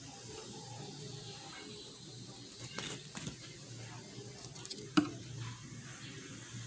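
Light handling sounds of cut plastic bottle strips and cardboard flowers being worked by hand: soft rustles and small clicks, with one sharp click about five seconds in.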